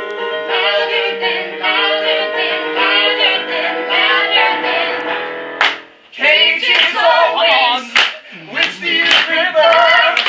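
A woman and two men singing a musical-theatre song together over accompaniment. About six seconds in the accompaniment stops, and they carry on singing loudly with hand claps.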